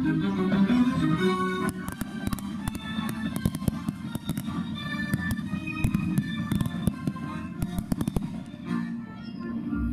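Aerial fireworks going off in a rapid string of crackles and bangs, many a second, from about two seconds in until near the end, over music.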